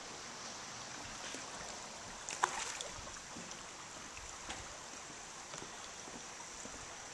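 Quiet outdoor ambience: a faint, steady hiss, with one short click about two and a half seconds in.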